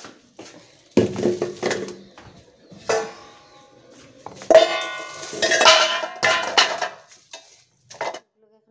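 Stainless steel bowl clanking and ringing against a ceramic sink as bags of fish are put into it. There is a clank about a second in, another near three seconds, and a longer stretch of knocks and ringing from about four and a half to seven seconds.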